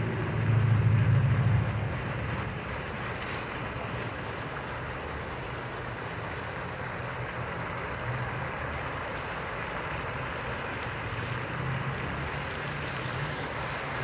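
Fountain jets splashing steadily into the basin, a constant rush of falling water. A low rumble is loudest for about the first two seconds, then settles under the splashing.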